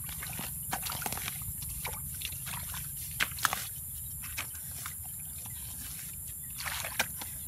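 Hands groping and sloshing through shallow muddy water and wet mud in a flooded dug hole, with scattered small splashes and squelches over a steady low rumble. There are two louder splashes a little past three seconds in.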